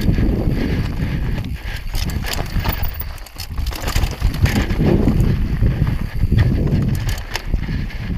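Mountain bike descending a rocky trail: tyres rolling and crunching over loose stones and rock, the bike clattering with many sharp knocks over the bumps, under a steady rumble of wind on the camera microphone.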